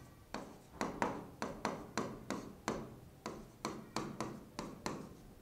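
Stylus tip tapping and clicking on the glass of an interactive display screen as a word is handwritten: a quick, slightly uneven run of sharp ticks, about four a second, starting a moment in.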